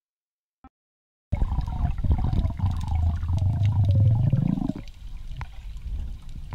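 Water noise heard underwater: after a second of silence and a faint click, a loud rushing rumble starts suddenly, with a string of falling whistle-like tones over it. After about three seconds it drops to a quieter water hiss with small clicks.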